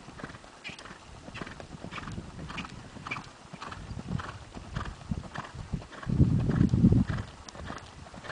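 Horse's hoofbeats on sand arena footing, a steady rhythm of about two thuds a second as it canters. About six seconds in, a louder low noise lasts for about a second.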